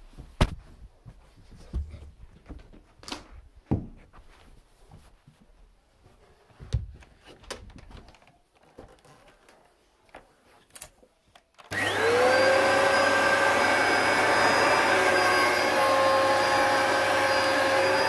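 A few scattered knocks and clicks, then about two-thirds of the way through a Dyson DC01 upright vacuum cleaner switches on, its motor spinning up with a quick rising whine and settling into a steady running tone.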